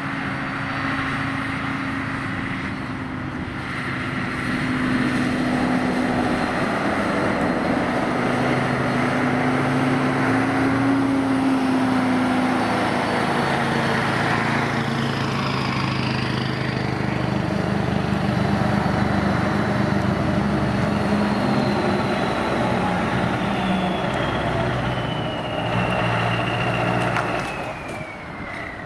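Scania V8 truck engine running as the truck drives by, its note shifting up and down, with a high whine gliding down in pitch through the second half. It fades near the end.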